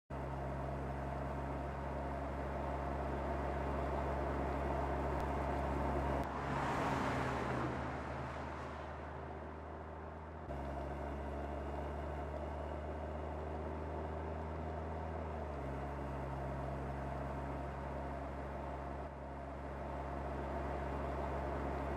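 Mercedes-AMG CLS 53's turbocharged 3.0-litre inline-six running at a steady cruise over tyre and road noise. About six seconds in, a rush of wind and tyre noise swells and fades as the car goes by. The engine tone shifts abruptly several times.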